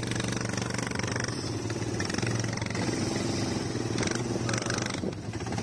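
Quad bike (ATV) engine running steadily with an even low hum.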